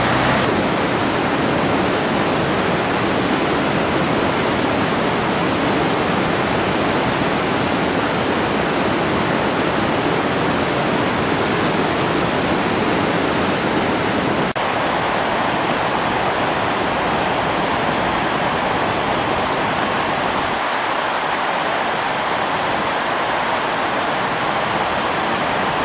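Mountain river rushing over rocks: a steady, loud rush of water.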